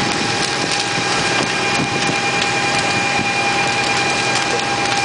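A fire apparatus's engine and pump run steadily at pumping speed, with a constant whine over a loud, even rush of noise.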